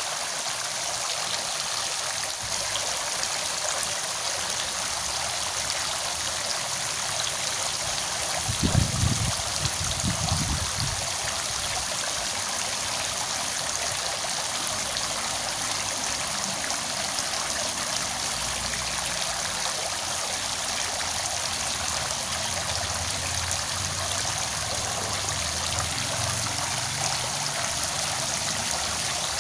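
Steady rush of flowing water, even and unchanging, with a few brief low thumps about nine to eleven seconds in.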